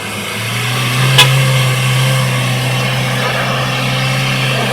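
Off-road 4x4's engine growing louder over the first second, then running steadily under load as it is guided over a trail obstacle, with one sharp click a little over a second in.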